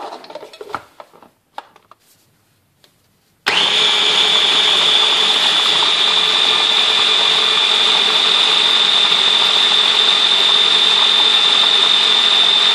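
Stick blender motor unit being clicked onto its chopper bowl with a few knocks. About three and a half seconds in, its motor starts and runs steadily with a high whine, puréeing roasted eggplant pulp with yogurt, tahini, garlic and lemon juice.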